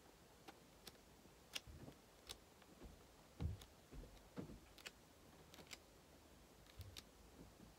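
Near silence with faint handling of a book: pages being turned, giving soft rustles and scattered small clicks.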